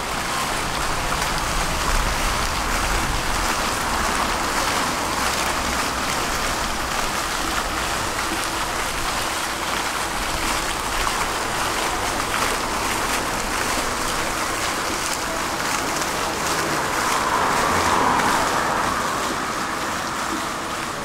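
Tram running along its rails: a steady rumble and hiss of wheels on track, swelling louder about seventeen to nineteen seconds in.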